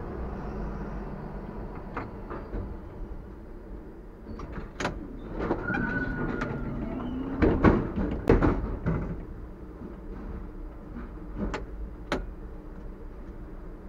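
TW6000 tram coming to a halt at a stop, with a brief high squeal as it stops, then a run of loud clunks and rattles from its doors opening, and a few sharp clicks later on.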